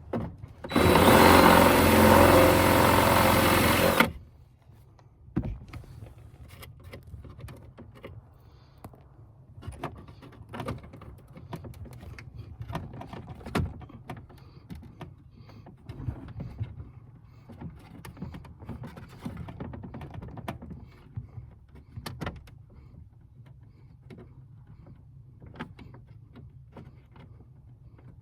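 A loud burst of noise lasting about three seconds, starting just under a second in, followed by scattered clicks, taps and knocks of parts and tools being handled during work on a vehicle.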